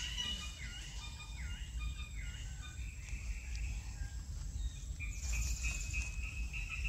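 Outdoor forest ambience: insects chirping steadily, a bird repeating a dipping call a few times in the first two seconds, and a low steady rumble underneath.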